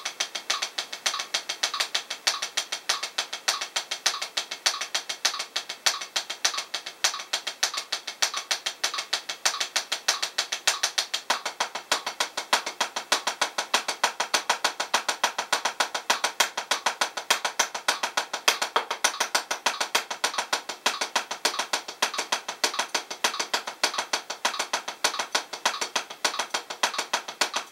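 Los Cabos 7A hickory drumsticks striking a P4 practice pad in a steady, unbroken run of single paradiddles (RLRR LRLL) played as sixteenth notes at 100 bpm, about six to seven strokes a second.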